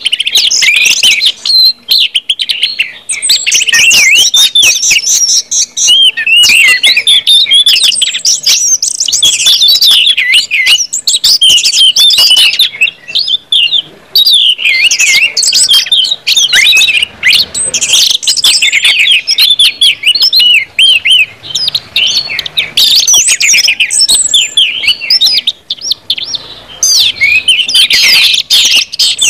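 Orange-headed thrush singing loudly and without let-up: a fast, varied warble of high whistles and chirps, with short breaks about halfway through and near the end.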